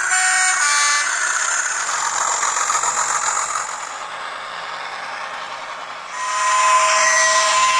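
N gauge model trains running along the track, the small electric motors whining over the hiss of wheels on rail; a steady, higher motor whine comes in about six seconds in.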